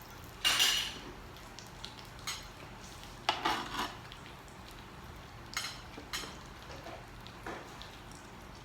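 Utensils scraping and clinking against dishes and cookware in a few short bursts, the loudest about half a second in.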